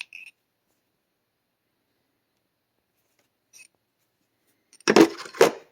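Mostly near silence, then about five seconds in a short loud clatter with two knocks close together, as tools are handled in a tool box drawer.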